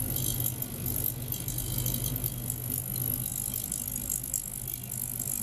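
Ultrasonic cleaner running: a steady low hum under a high, crackling fizz from the agitated water in its stainless tank.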